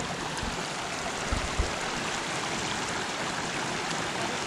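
Mountain stream running over boulders, a steady rush of water, with a couple of short low thumps about a second and a half in.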